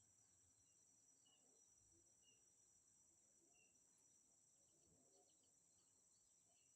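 Near silence: a faint, steady high-pitched insect drone, with a few faint short chirps.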